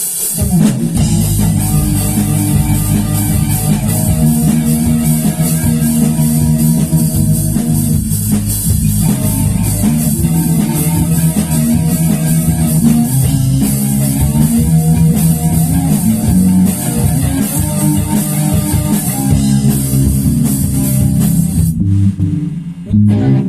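Rock-style band music with guitars, bass guitar and drums playing steadily; near the end the music briefly thins out before picking up again.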